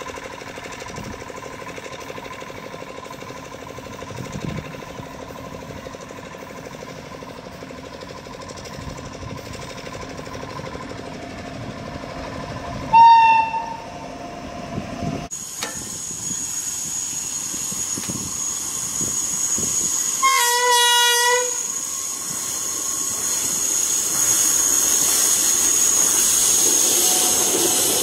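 Indian Railways WAP-7 electric locomotive approaching and passing with a steady rumble, sounding its horn in two short blasts, the first about 13 seconds in and a lower-pitched one about 20 seconds in. The coaches then rumble past with a steady high whine.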